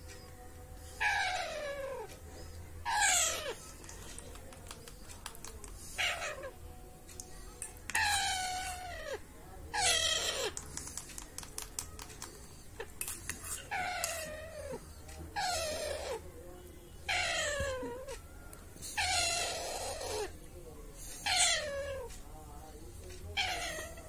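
A young Alexandrine parakeet calling over and over during spoon-feeding: about a dozen harsh, raspy squawks, each sliding down in pitch and lasting under a second, roughly every two seconds, the food-begging calls of a hand-fed parrot chick.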